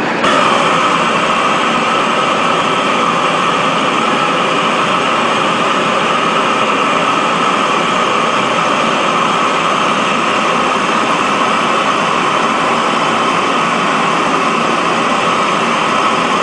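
Steady, loud rushing noise of glass-blowing equipment, with a hissing band in the upper-middle range, starting abruptly just after the start and holding level.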